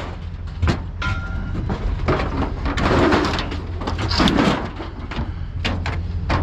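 Steel store shelving sliding and clanking as pieces are dragged and dropped, with a brief metallic ring about a second in, over a steady low engine hum.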